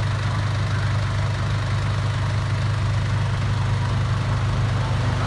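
Vehicle engine idling steadily, a constant low hum with no change in speed.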